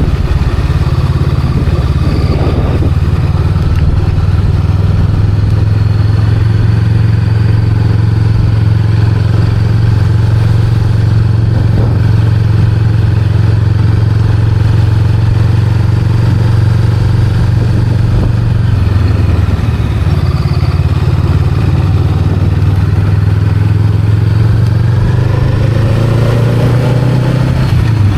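Honda Rebel 500's 471 cc parallel-twin engine running at a steady pace under way, a loud, even low note. Near the end a faint rising tone comes in above it.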